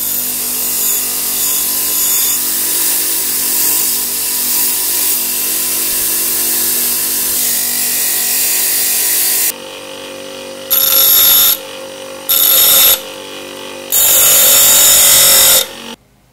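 Bench grinder running, with the steel tip of a screwdriver held against the wheel to grind it down. The grinding is steady at first, then comes in three short, louder bursts as the tip is pressed on and lifted off.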